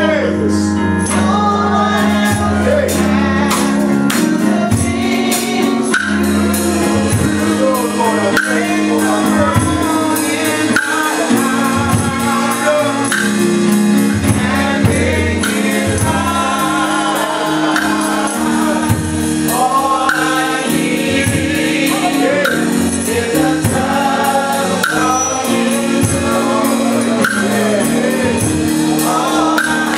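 Live gospel music: voices singing over held low chords, with a fast steady percussion beat.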